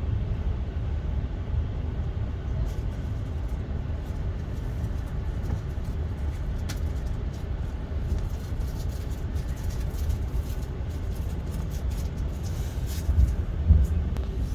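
Passenger train running: a steady low rumble with scattered faint clicks and rattles.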